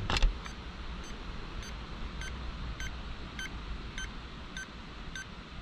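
Handheld EMF meter beeping steadily, short high electronic beeps about twice a second, the sign of a reading it is picking up. A sharp knock, the loudest sound, comes right at the start.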